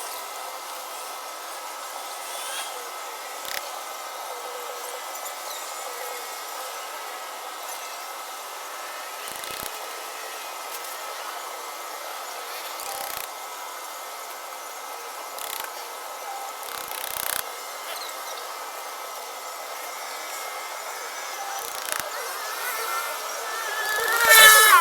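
Scattered knocks and clicks from tent stakes being driven in, over a steady hiss with a faint high hum. A louder sound comes right at the end.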